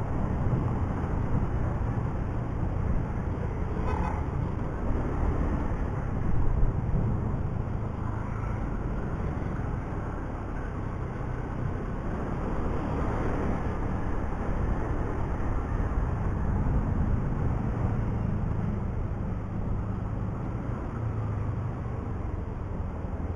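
Motorcycle running along in traffic, a steady engine and road noise, with a short vehicle horn toot about four seconds in.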